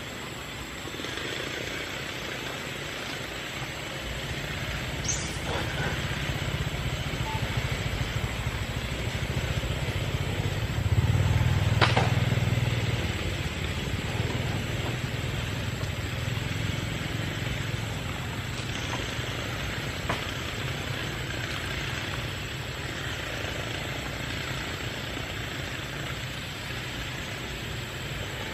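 Low, steady engine drone from a distant motor, growing louder to a peak about halfway through and then easing off, over a hiss of outdoor background noise, with a few single sharp clicks.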